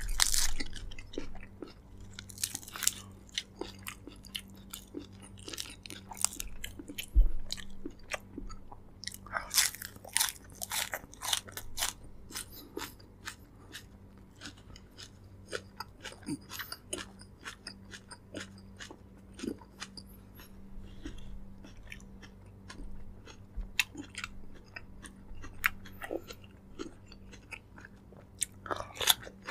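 Close-miked eating sounds from braised pork leg: wet chewing with irregular clicks and crackles, and some louder bites.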